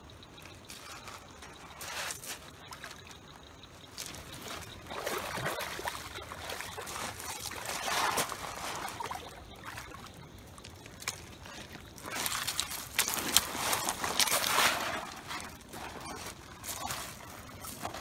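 A hooked catfish splashing in shallow river water as it fights and is landed at the bank. The splashing comes in irregular bursts and is loudest about two-thirds of the way through.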